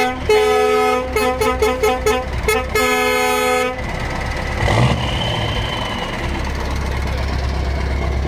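Truck air horns blasting a quick run of notes at a few different pitches for about four seconds, then stopping, leaving a heavy diesel engine idling with a low rumble.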